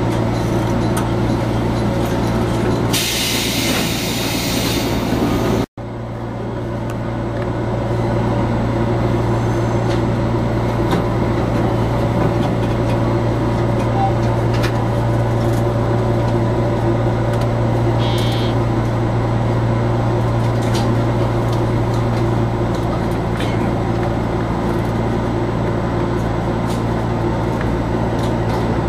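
Steady low electrical hum of a JR 415 series electric train standing at a platform, heard from inside the cab. About three seconds in, a hiss joins for a couple of seconds and cuts off abruptly.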